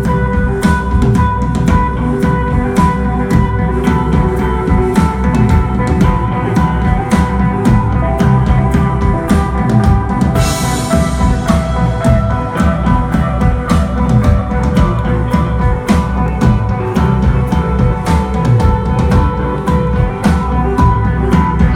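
Psychedelic desert rock band playing live: sustained electric guitar over bass and a drum kit beating a steady rhythm, with a cymbal crash about ten seconds in.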